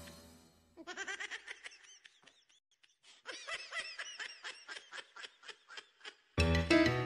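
Background music fades out, then laughter in two runs of quick, evenly spaced 'ha-ha' bursts, the second run longer. The music starts again near the end.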